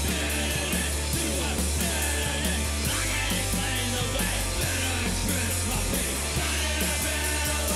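Psych rock band recording: drums, bass guitar and electric guitar playing a loud, dense passage with a steady drum beat.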